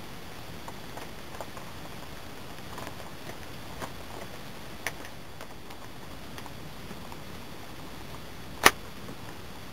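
A few faint clicks from hands working a birch bark knife sheath and a red-handled Mora knife, then one sharp click near the end as the knife is pushed into the sheath. A steady hiss runs underneath.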